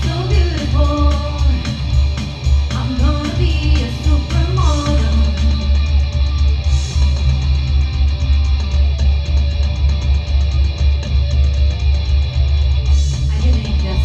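Live rock band playing through amplification: electric bass, electric guitar and a drum kit keeping a steady beat, with singing over the first few seconds.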